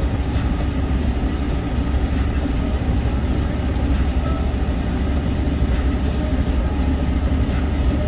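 Steady road and engine noise of a moving vehicle heard from inside its cabin, a low rumble driving on a snow- and slush-covered highway, with occasional faint clicks.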